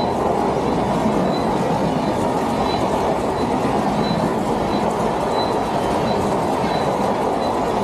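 Indian Railways passenger coaches rolling past close by: a steady, loud rumble of wheels and bogies on the rails.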